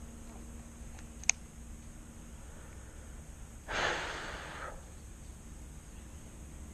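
A single sharp click about a second in, then a breathy exhale like a sigh, lasting about a second, a little past the middle.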